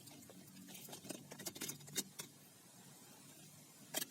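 Toy guns being handled: a scatter of light clicks and rattles about a second in, then one more click near the end, over a faint low hum.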